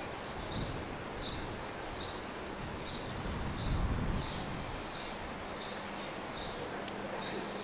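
Footsteps of someone walking on pavement, about one and a half steps a second, over steady street background noise. A low steady hum joins about five seconds in.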